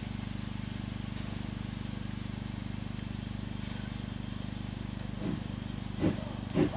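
Steady low hum, with a few short voice-like calls about five and six seconds in.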